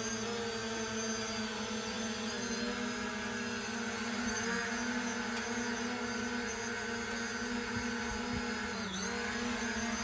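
Parrot Anafi Ai quadcopter's rotors humming steadily in flight, a droning whine with a single held pitch. The pitch sags briefly about nine seconds in as the drone comes in low, then picks up again.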